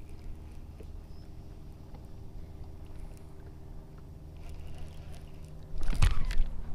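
Boat motor running with a steady hum. Near the end a sudden, much louder rush of noise comes in over it.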